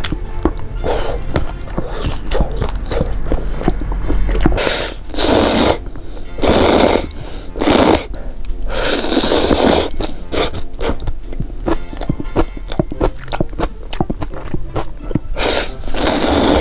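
A person chewing sausage with small wet clicks, then loudly slurping ramen noodles in a series of about five hissing slurps from about four and a half seconds in.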